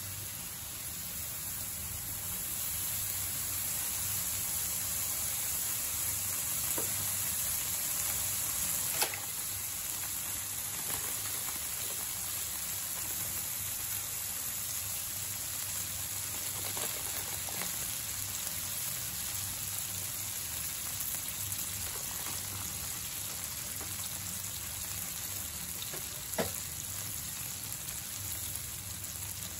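Okonomiyaki sizzling steadily on a hot teppan griddle. A few light taps sound over it, the sharpest about nine seconds in and again near the end.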